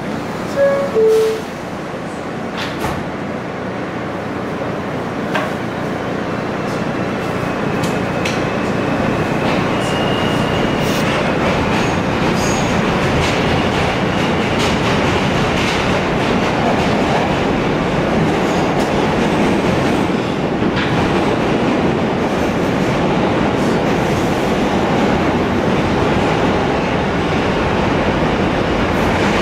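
Two-tone descending door chime as the doors close, then a New York City subway train pulling out and gathering speed: the rolling rumble and wheel clatter grow steadily louder, with a thin high whine for a few seconds near the tenth second.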